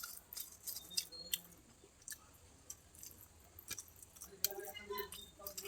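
Close-up mouth sounds of someone eating a rice meal: soft chewing with many short wet clicks and lip smacks.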